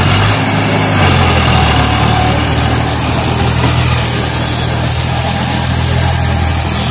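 Eicher 551 tractor's three-cylinder diesel engine running steadily under load as it pulls an implement through dry soil.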